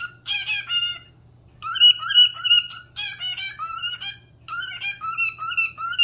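Cockatiel whistling a tune in phrases of clear, short held and gliding notes, pausing briefly about a second in and again past the four-second mark.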